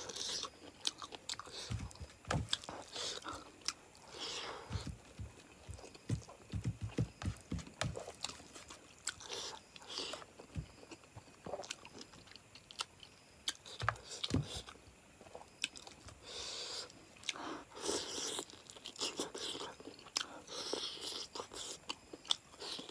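A person chewing mouthfuls of rice and chicken curry eaten by hand: irregular wet clicks and chewing sounds of the mouth.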